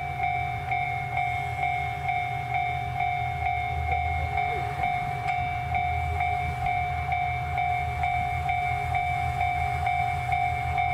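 Single-car diesel railcar running with a low engine rumble as it edges slowly forward. Over it, a repeating electronic warning tone pulses about twice a second.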